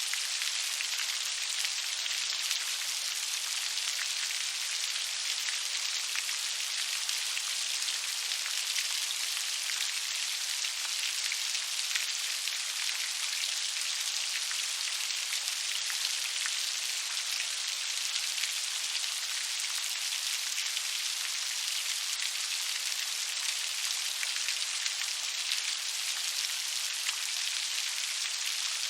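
Steady rain falling on a surface, a dense even patter with scattered individual drops ticking through it.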